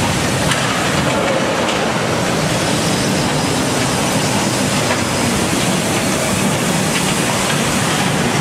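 A train of open-top gondola railcars loaded with scrap metal rolling along the track: a steady, even noise of wheels on rail, with a few faint clicks.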